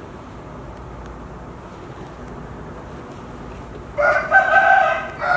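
A rooster crowing about four seconds in: a loud held crow that breaks briefly and ends with a shorter final note.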